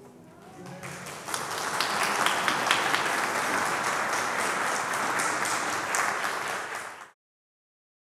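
Audience applauding: the clapping builds up over the first second or so, holds steady, then cuts off suddenly near the end.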